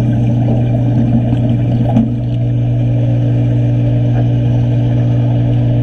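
A steady, loud low machine drone, heard underwater. A rough crackling layer over it stops about two seconds in.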